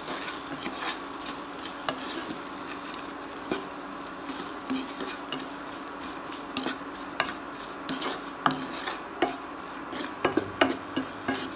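Chopped onions, potatoes and peas frying in oil in a non-stick pan, sizzling steadily, while a spatula stirs them with irregular light knocks and scrapes against the pan.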